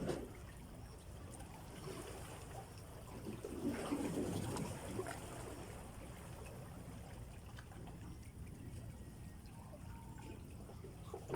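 Faint trickling and sloshing of shallow water, a little louder for a moment around the middle.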